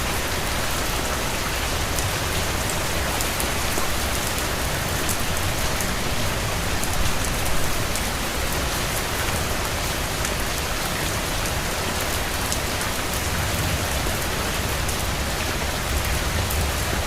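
Steady rain falling on a surface, a dense even hiss with many individual drops pattering and a low rumble underneath.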